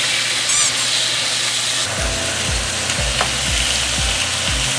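Marinated LA galbi (bone-in beef short ribs) frying in oil in a frying pan, a steady fierce sizzle. A steady low beat of background music comes in about halfway.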